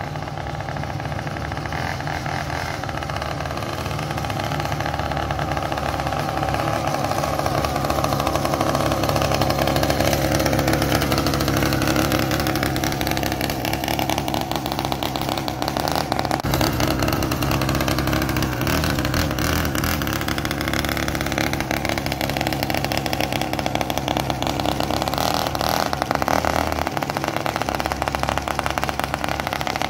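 The small 49cc gas engine of a converted Razor MX350 minibike running under way, its pitch rising and falling several times as the throttle is opened and eased off.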